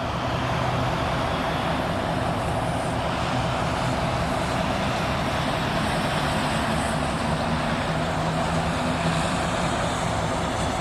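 Diesel locomotive idling steadily while stopped: a low engine hum under a steady hiss.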